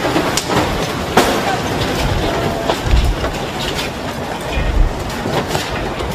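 Strong lodos gale gusting and rumbling heavily on the microphone, with scattered knocks and rattles of debris and set pieces. Two heavy gusts come about three and five seconds in.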